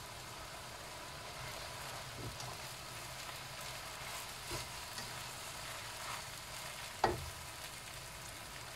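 Yellow noodles and mustard greens sizzling quietly in a wok as they are tossed and stirred with tongs. A few light knocks of the tongs against the pan, the sharpest about seven seconds in.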